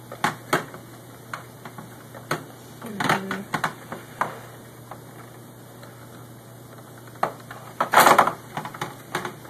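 Scattered clicks and knocks of an Xbox 360's disc drive being handled and lifted out of the console, with a short cluster about three seconds in and a louder clatter near the end.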